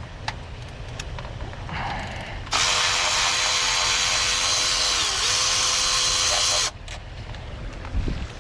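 A power tool runs steadily for about four seconds, spinning a water pump bolt out. Its pitch dips briefly about two-thirds of the way through, then recovers.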